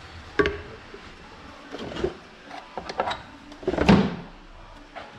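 Objects being handled and set down: several separate knocks and clunks, the loudest about four seconds in.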